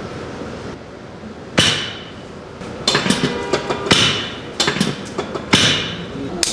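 Chiropractic adjustment knocks: a series of sharp knocks, irregularly spaced and each with a short fading tail, starting about one and a half seconds in.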